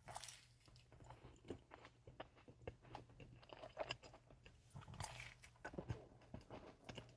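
A person chewing a cookie close to the microphone: faint bites and wet mouth clicks, irregular and quiet.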